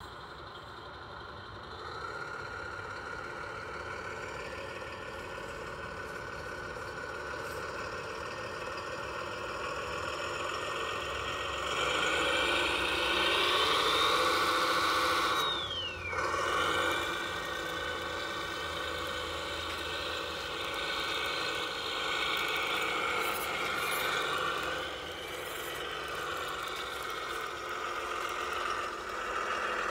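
Radio-controlled model truck running, with a steady engine-like drone that swells and rises in pitch about halfway through, and a short falling whistle just after.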